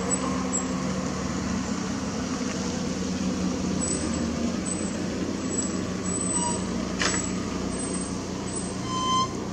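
Steady low engine hum of motor traffic under constant outdoor background noise, with a short sharp sound about seven seconds in and a brief high chirp near the end.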